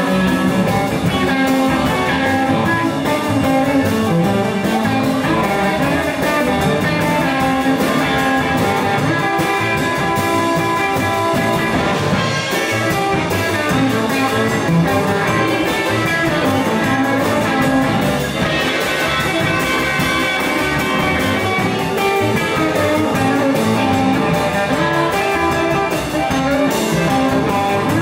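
Live electric blues band playing steadily: Telecaster-style electric guitar over bass and drums.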